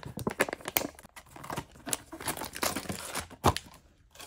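Plastic foil blind-bag packaging crinkling and tearing as it is pulled open by hand, a fast run of crackles with one sharper snap near the end.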